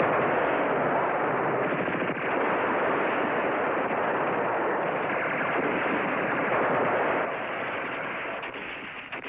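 Heavy, continuous gunfire, rapid rifle and machine-gun shots running together. It starts abruptly and drops lower about seven seconds in.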